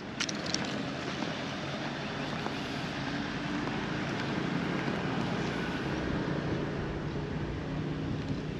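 Steady engine and road noise of a moving vehicle, with two short clicks just after the start.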